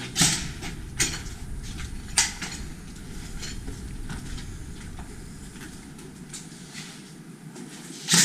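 Airsoft gun firing a few single shots seconds apart: one just after the start, two lighter ones about one and two seconds in, and a loud one at the end. Between the shots there is the steady rustle of the shooter moving through the building.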